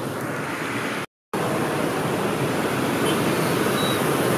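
Steady street traffic noise from motorbikes and cars on a busy city road, with a short dropout to silence about a second in.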